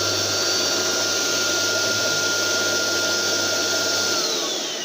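Small Beko vacuum cleaner's motor running at full speed on a test run after repair, a steady rush of air with a high whine. About four seconds in it is switched off and the whine falls as the motor spins down.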